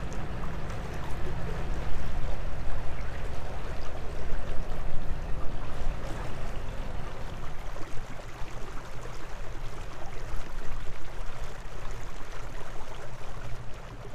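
Water rushing and splashing past a narrowboat's bow while under way, with a gusty, rumbling wind noise on the microphone.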